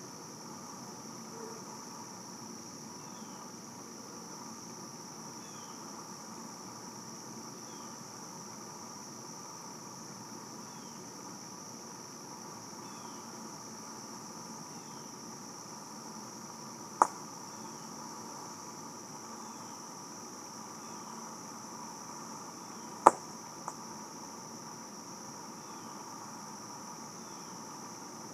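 Steady high-pitched insect chorus with a faint short chirp repeating about once a second. Two sharp pops come several seconds apart in the second half, the second one louder and followed by a faint tick.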